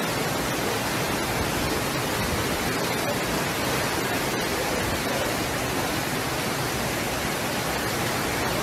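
Floodwater rushing down a street, a steady, unbroken sound of fast-moving water.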